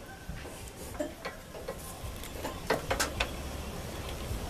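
Scattered light clicks and knocks from wood and tools being handled while setting up a cut, with three quick ones close together about three seconds in, over a low steady hum.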